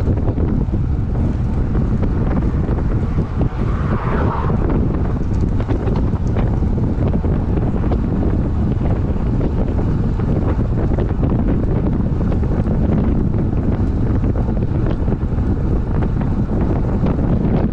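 Wind buffeting the microphone of a road bike moving at about 35 km/h: a loud, steady, low rushing rumble.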